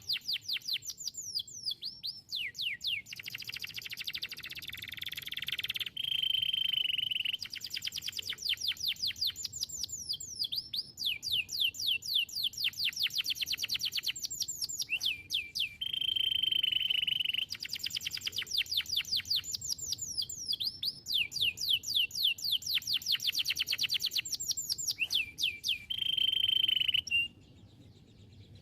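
Domestic canary singing: fast trills of rapidly repeated falling whistled notes, broken about every ten seconds by a steady held buzzing note. The song stops shortly before the end.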